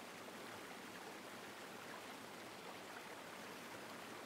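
Faint, steady, even hiss with no other events: the recording's background noise floor.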